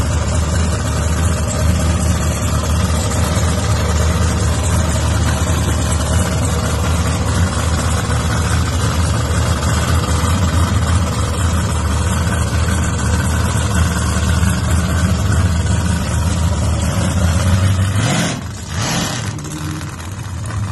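Supercharged LS V8 engine of a VL Commodore running loud and steady at low revs; about 18 seconds in, the car pulls away and the engine sound drops off.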